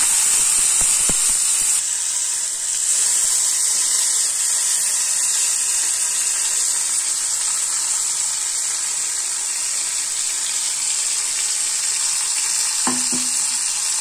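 Blended tomato chutney sizzling in hot oil tempered with mustard seeds, urad dal and curry leaves in a kadai, a steady hiss. A single short knock near the end.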